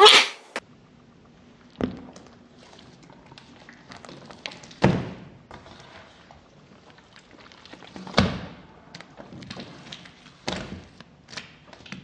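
A heavy 3-pound mass of gel-like slime being folded and pressed onto a table: four separate thumps a few seconds apart, with faint clicks and squelches between them. A loud sharp burst comes right at the start.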